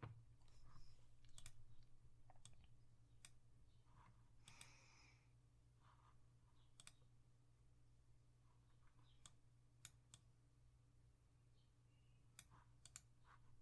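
Faint, irregular clicks from working a computer, a dozen or so spread unevenly, over a steady low hum. A brief soft rustle about four and a half seconds in.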